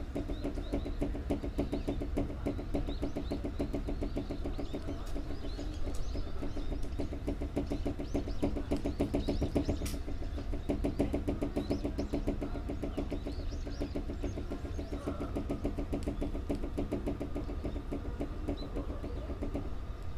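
Air compressor of a standing Tobu 6050-series electric train running with a fast, even pulse, shaking the crew-compartment door so that it rattles in time with it.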